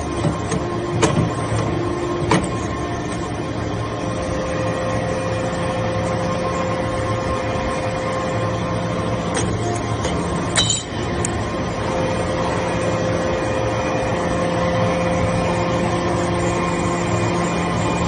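Hydraulic metal-chip briquetting press running as its ram compresses swarf: a steady hum with a whine from the hydraulic pump that fades and returns. A few sharp clicks in the first couple of seconds, and a single sharp knock with a brief dip in sound about ten and a half seconds in.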